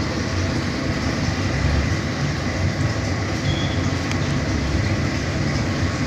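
Gas stove burner flame under a pot of water, giving a steady low rumble.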